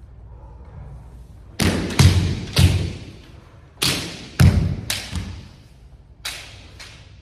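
Kendo sparring: bamboo shinai clacking against each other and the armour, with stamping feet on a wooden floor. The sharp hits come in three quick flurries, starting about a second and a half in, around four seconds, and a pair near the end, each ringing out briefly.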